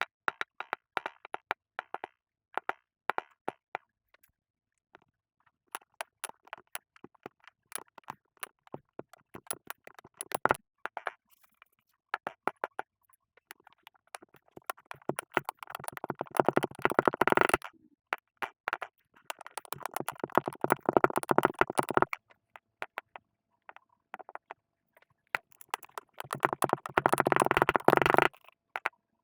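Kinetic sand being cut and squished, giving scattered crisp crackles and then three longer stretches of dense crunching, about halfway through, a little later, and near the end.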